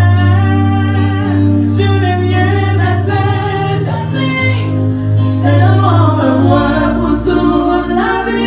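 Gospel song: singing over an instrumental accompaniment with long held bass notes.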